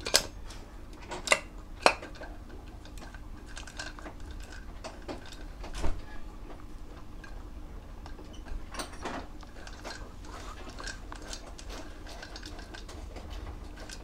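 Steel transmission gears and shafts of a Honda C70 engine clinking and knocking against each other and the aluminium crankcase as they are fitted by hand. A few sharp clinks come in the first two seconds, another knock about six seconds in, and lighter ticks later.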